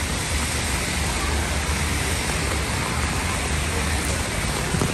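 Heavy rain falling on wet pavement and road, a steady hiss.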